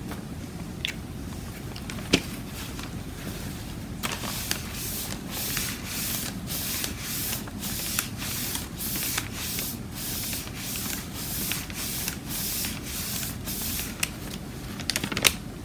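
Wad of paper towel rubbing and dabbing across alcohol-inked photo paper: a run of quick swishing strokes, about two a second, starting about four seconds in. A couple of light taps come before it.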